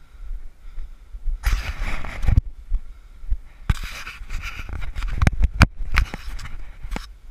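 A climber scrambling over a tiled roof ridge: scuffing and several sharp knocks of hands and shoes on the tiles, with loud rushes of breath on a head-mounted GoPro's microphone.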